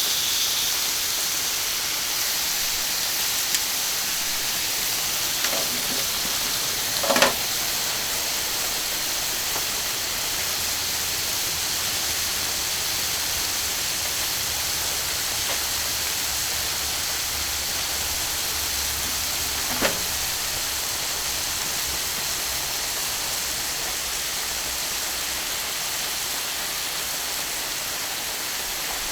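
Skirt steak sizzling steadily on a hot iron griddle, with a few short taps, the loudest about seven seconds in and another near twenty seconds.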